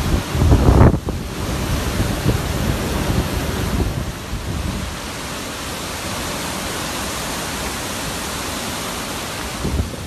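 Hurricane-force wind rushing through trees and buffeting the microphone. There is a strong gust rumble about a second in, then a steadier rushing noise.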